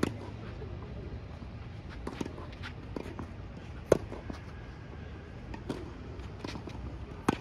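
Tennis rally: a ball struck back and forth with rackets. The near player's hits are the sharp, loud pops, one at the start, one about four seconds in (the loudest) and one near the end. Fainter knocks of the ball come in between.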